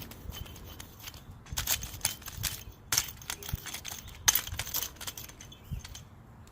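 A metal hand garden tool working through soil, breaking it up. Irregular scrapes and sharp clicks as it grates against small stones, with several louder strikes spread through.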